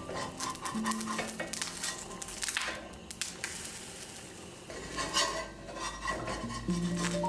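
A metal spoon stirring and scraping in a cooking pot, with repeated clinks and scrapes, while food sizzles in the pan.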